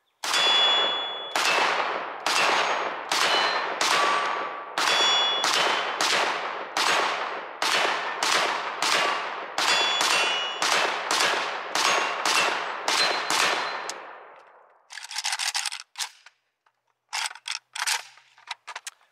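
About twenty shots from a 3D-printed Draco AK-pattern pistol in 7.62×39 with a compensator, fired at a steady pace of a little under two a second, with steel targets ringing as they are hit. The shooting stops a few seconds before the end, followed by a short rustle and a few clicks.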